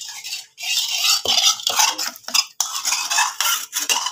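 A spoon stirring and scraping chutney ingredients inside a stainless-steel mixer-grinder jar, in irregular strokes.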